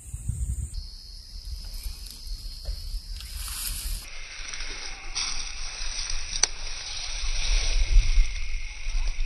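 Wind buffeting the phone's microphone, a fluctuating low rumble under a steady hiss that grows louder in the second half. A single sharp click about six and a half seconds in.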